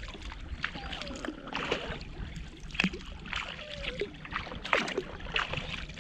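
Kayak paddle blades dipping and splashing in the water in an uneven rhythm, about one stroke every half second to a second, over the low wash of water along the hull.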